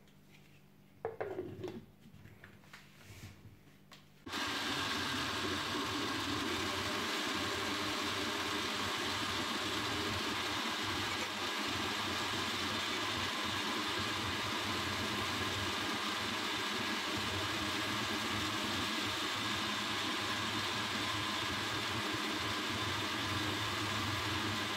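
A few plastic clatters as the lid goes onto the glass blender jug. About four seconds in, the jug blender's motor switches on and runs steadily at one speed, blending a thick smoothie mix of oats, raisins, coffee and yogurt.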